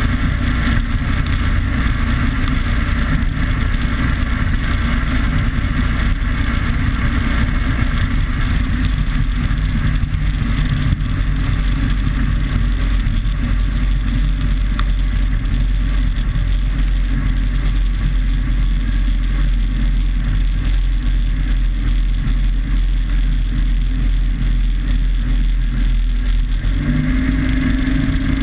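A RIB powerboat's engine running steadily at speed, heard with heavy wind rush and spray on the microphone. Near the end the engine note changes to a steadier, clearer hum.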